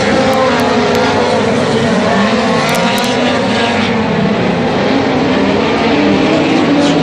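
A pack of speedcars racing around a dirt oval, several engines running hard at once with their notes rising and falling as the cars go through the turns and down the straights.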